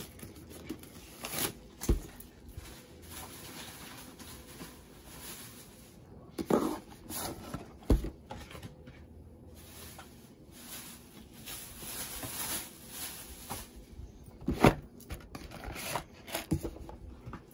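Plastic shrink wrap slit and torn off a Pokémon Elite Trainer Box, then the cardboard box opened and its contents handled: scattered rustling and tearing with soft knocks and clicks.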